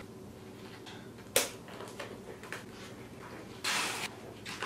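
Tight disposable gloves being pulled onto the hands: a sharp snap about a second and a half in, a few small ticks, and a short rustling rush near the end.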